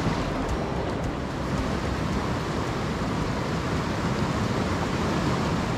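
Steady rush of a shallow, boulder-strewn river rapid, water pouring around rocks and past a canoe being walked through it.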